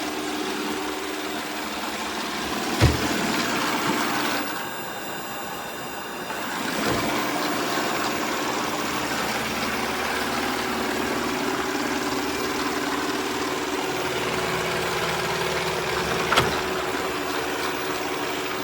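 Shark robot vacuum running: a steady whir of its suction motor with a low hum. There is a sharp knock about three seconds in and another near the end.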